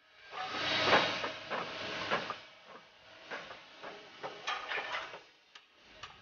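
Oak barrel staves collapsing out of a metal hoop and clattering onto the floor. A loud burst of wooden clatter fills the first two seconds, then scattered knocks follow as the last staves fall and settle.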